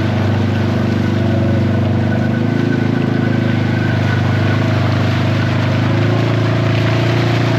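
ATV engine running at a steady speed while riding along a trail.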